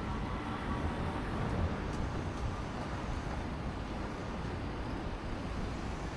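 Steady city street traffic: passing vehicle engines and tyres making a continuous low noise, with no single event standing out.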